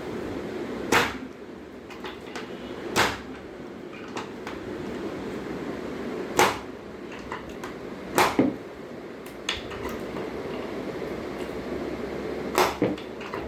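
Sharp clicks and knocks from chiropractic adjustments of a child's ankles. There are about five strong strikes a couple of seconds apart, two of them in quick pairs, over a steady low hum.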